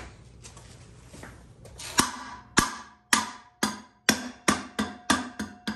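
Repeated sharp blows on the motorcycle's rear wheel hub, starting about two seconds in and coming faster and faster, each with a short metallic ring: the upgraded cush drive rubber being knocked into place.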